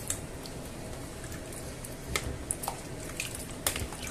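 A spoon stirring cubed potatoes in watery broth in a stainless steel pot: liquid sloshing and squelching, with scattered light clicks of the spoon against the pot, more of them in the second half.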